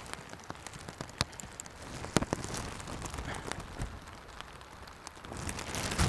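Rain falling steadily, with scattered sharp drop hits close to the microphone, swelling louder briefly near the end.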